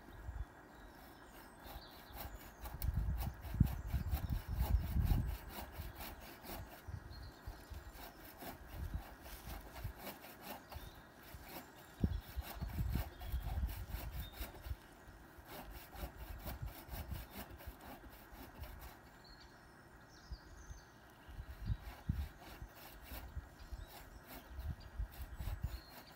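Hand saw cutting through a tree branch in steady, repeated back-and-forth strokes, with bouts of low rumble now and then.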